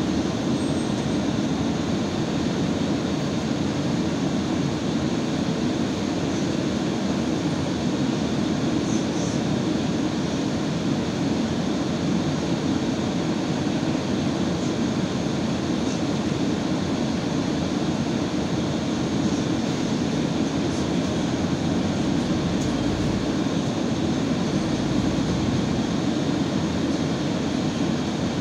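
Inside an Irisbus Citelis 12 m city bus: a steady low drone of its engine idling with the bus at a standstill, with cabin noise.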